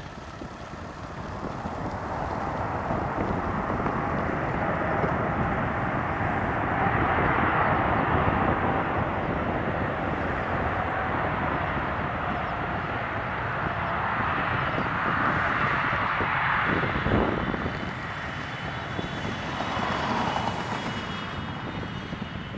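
The GE90 jet engines of a Boeing 777-300ER as it rolls along the runway after touchdown: a broad, steady roar that swells over the first few seconds and then holds, with a faint high whine near the end as the aircraft passes.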